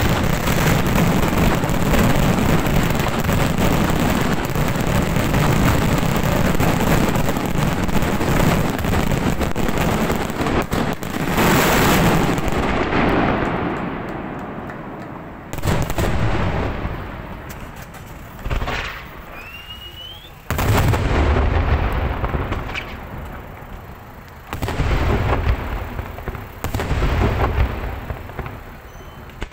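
Fireworks display: a dense, continuous barrage of shell bursts and crackling for the first dozen seconds. It then thins out to separate booming bursts every few seconds.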